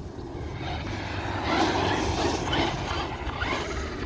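Traxxas Rustler 4x4 VXL RC truck driving on loose dirt: its brushless motor and geartrain whining, the pitch rising and falling with the throttle, over a steady noise of tyres and drivetrain. It is loudest around the middle.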